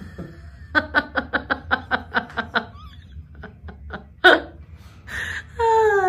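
A person laughing: a quick even run of about ten 'ha' beats, about five a second, then a few softer chuckles tailing off.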